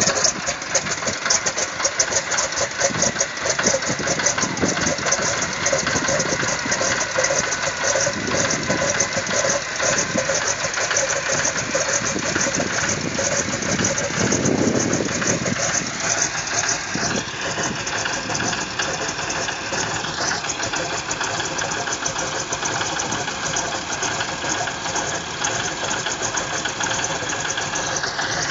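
Radial piston engine of a single-engine agricultural plane idling on the ground, a steady rapid pulsing beat. About 17 seconds in, steady higher tones join the engine sound.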